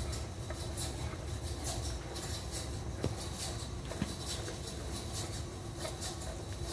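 Helical gears meshing and rolling bearings turning in an open two-stage gearbox as its input shaft is rotated by hand: a soft, irregular scratchy ticking, with a sharper click about three seconds in and another a second later, over a steady low rumble.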